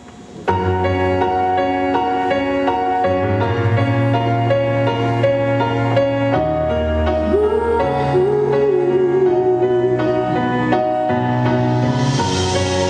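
Music for the dance starts abruptly about half a second in: sustained chords over a low bass, with a wavering melody line entering about seven seconds in.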